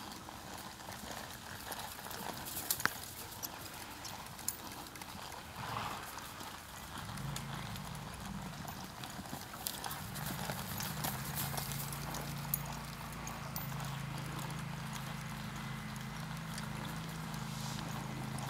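Hoofbeats of a ridden horse moving over a soft dirt arena. From about seven seconds in, a steady low hum runs underneath.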